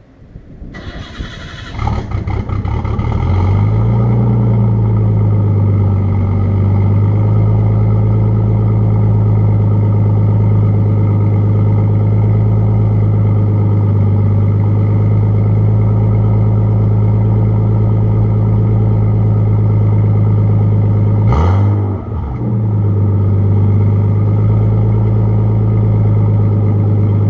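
Nissan Skyline R32 GTS-t's RB20DET turbocharged inline-six cold-starting, heard at the tailpipe: the starter cranks, the engine catches about two seconds in and settles into a steady cold high idle. About 21 seconds in the revs dip briefly with a sharp click, then recover to the same idle.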